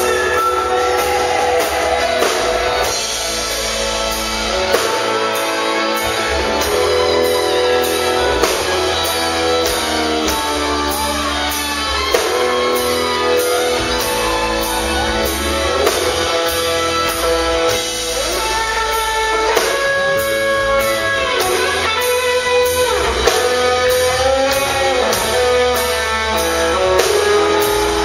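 Live country band playing: fiddle and electric guitar lines over electric bass and a steady drum beat.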